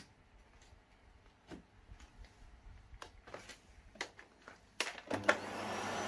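Faint handling clicks, then about five seconds in a sharp click as the Hoover Telios Plus canister vacuum cleaner is switched on. Its motor starts up into a steady rush of air with a low hum and a whine rising slightly in pitch as it spins up.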